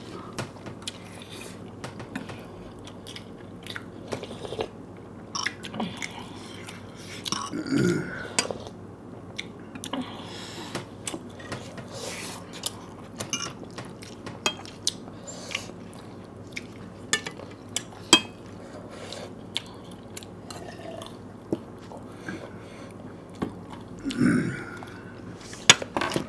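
Close-miked chewing and mouth noises of people eating dumplings and noodles, with frequent sharp clicks of spoons and forks against plates and bowls. A couple of brief louder mouth noises come about eight seconds in and near the end.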